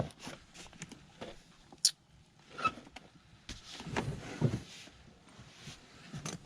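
Rummaging through tool bags: scattered clicks and knocks of tools being shifted about, with a sharp click about two seconds in and a longer rustle of the bag's contents past the middle.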